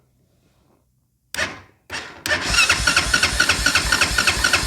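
Honda Foreman ATV's electric starter cranking the single-cylinder engine: two short blips, then steady cranking with an even chug of about five or six compression strokes a second. The engine never fires, because the fuel tank is empty; the new starter solenoid is now working.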